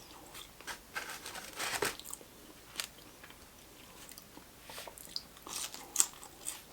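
Close-up chewing of a fried chicken sandwich with pickles: scattered wet smacks and crunches from the mouth.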